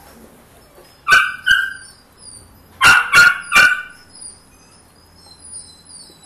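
Malinois puppy giving short, sharp yelping barks: two about a second in, then three in quick succession about three seconds in.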